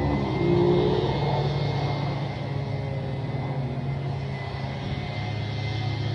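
Federal Signal outdoor warning sirens sounding in the distance during their monthly test, their tones gliding near the start and then holding steady. Under them runs a louder, steady motor drone.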